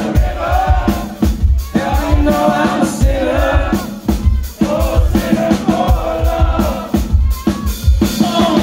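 Live rock band playing loud in a small club: drums, bass and guitar under a wavering lead melody, recorded from within the audience.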